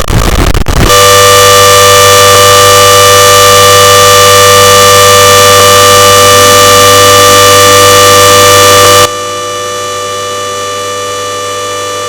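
Klexen DS8 washing machine on its spin cycle, giving a very loud, steady siren-like whine made of several held tones. The level drops suddenly about nine seconds in, while a faint tone slowly rises underneath.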